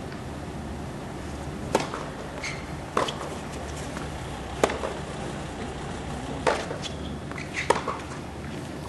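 Tennis ball struck back and forth in a baseline rally: about five sharp racket hits, roughly one every one and a half seconds, over a steady low background hum.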